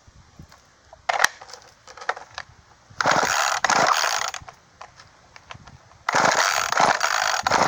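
Recoil starter of a two-stroke Poulan chainsaw being pulled: rasping whirs of the starter cord and pawls, a short pull about a second in and two longer ones around three and six seconds. The engine never fires; the saw does not start.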